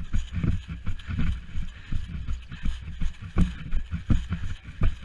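Running footsteps on the ground, about two to three steps a second, with the rustle of clothing and gear at each stride.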